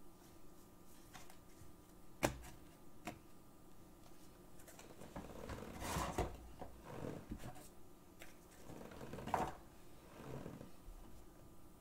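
Small handling sounds at a desk as trading cards and supplies are moved: a sharp click a couple of seconds in, then two bouts of rustling and knocking, around the middle and near the end.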